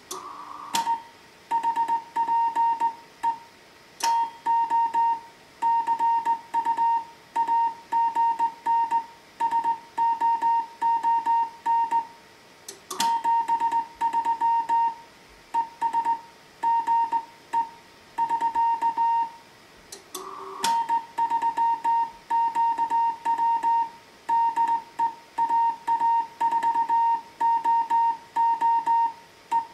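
Slow-speed Morse code from a Heathkit HW-101 transceiver: a single steady beep keyed on and off in dots and dashes, with short pauses between letters and words. A few sharp clicks break in.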